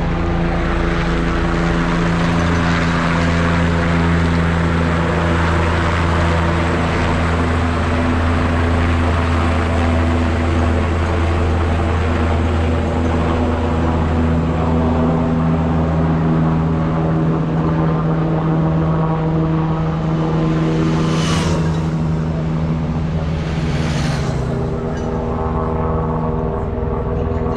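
Helicopter hovering overhead, a steady droning hum whose pitch shifts slightly now and then. Near the end, two short swishing sounds come about three seconds apart.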